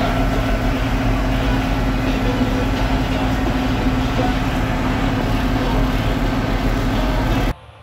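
Massey Ferguson 8250 tractor engine running steadily at road speed, heard from inside the cab with tyre and road noise. It cuts off abruptly near the end.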